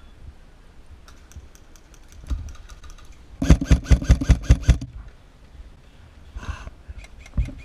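Airsoft electric rifle firing a full-auto burst about three and a half seconds in, a quick string of around nine shots at roughly seven a second. Fainter scattered airsoft shots click before and after it.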